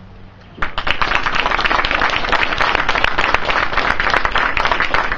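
Audience applauding, starting abruptly about half a second in.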